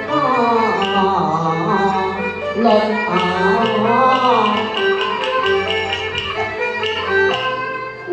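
Cantonese opera instrumental accompaniment: a bowed Chinese fiddle plays a gliding, ornamented melody over a small traditional ensemble with sustained low bass notes.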